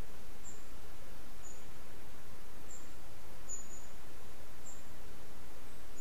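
Steady hiss of outdoor background noise, with short high-pitched chirps about once a second.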